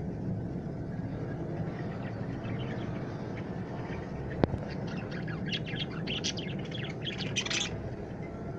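Budgerigars chirping: quick runs of short high chirps, mostly in the second half, over a steady low background hum. A single sharp click about four and a half seconds in.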